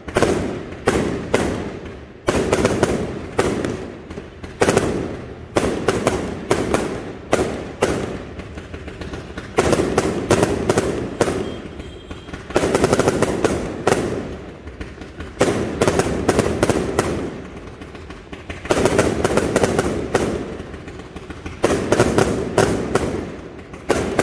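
Consumer fireworks battery (cake) firing shot after shot: repeated launch thumps and aerial bursts with crackling. The shots come in dense rapid volleys every few seconds, with single bangs in between.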